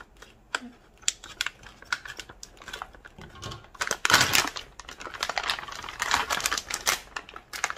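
Kitchen scissors snipping across the top of a foil pouch, a run of sharp clicks. About four seconds in the foil crinkles loudly as the cut top is pulled open, and it keeps rustling near the end.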